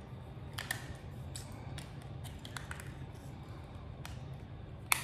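Small plastic clicks and taps from handling the battery box of a battery-operated LED string light while batteries go in, with one sharper click near the end.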